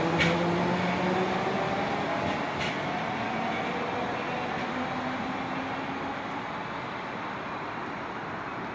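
Merseyrail electric multiple unit moving away, its traction-motor whine fading out over the first couple of seconds, leaving a rumble that dies away steadily. Two short high clicks come near the start and about two and a half seconds in.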